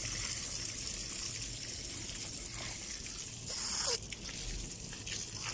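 Water running steadily from an outdoor tap through a garden hose, a continuous hissing flow, with a few faint knocks from the hose being handled about three to four seconds in.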